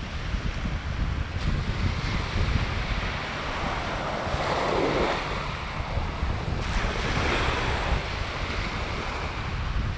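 Small waves breaking and washing up a sandy beach, the hiss of the wash swelling twice, near the middle and again a couple of seconds later, over a steady low rumble of wind on the microphone.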